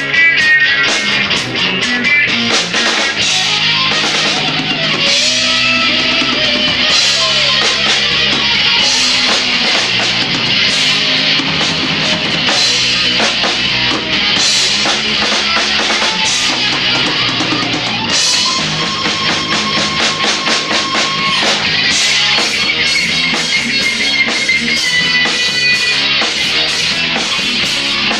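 Rock band playing live: guitar over a drum kit. About two-thirds of the way through, a long note slides up and holds for a few seconds.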